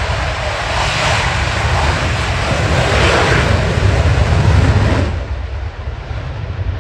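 Saab JAS 39 Gripen fighter's jet engine at takeoff power during the takeoff roll and lift-off: a loud, rushing noise over a deep rumble, swelling toward about four and a half seconds in. About five seconds in it drops in level and turns duller.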